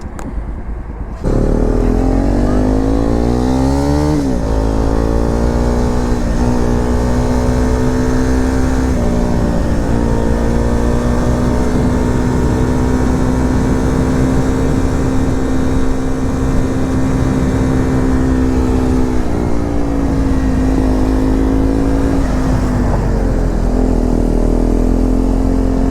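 KTM Duke 390's single-cylinder engine through an SC full-system aftermarket exhaust. About a second in it pulls away and revs up, and drops in pitch at an upshift near the four-second mark. It then runs at a steady cruise, with a few more pitch changes from throttle and gear changes later on.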